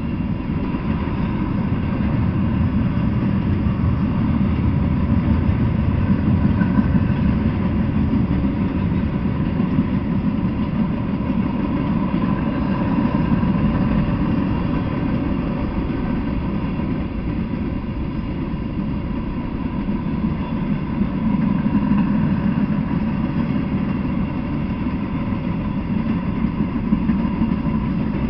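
Freight train cars rolling steadily past: a continuous low rumble of steel wheels on the rails, with a faint steady high tone over it.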